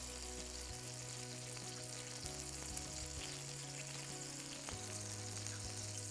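Blended beef-and-mushroom burger patties sizzling faintly and steadily on an electric ridged grill, under soft background music with a slow, stepping bass line.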